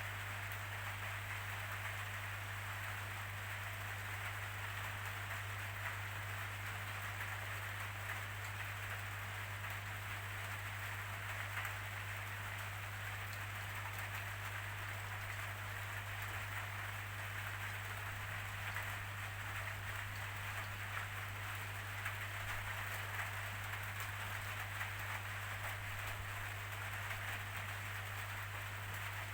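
Steady rainfall, an even hiss of rain with scattered drop ticks, over a steady low hum.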